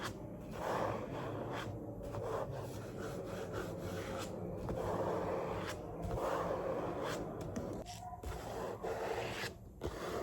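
Rubbing on a book, in a series of scratchy strokes each a second or two long with brief pauses between them.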